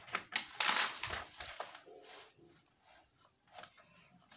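A paper picture-book page being turned by hand, a crisp rustle and slide loudest about a second in, followed by softer handling of the page.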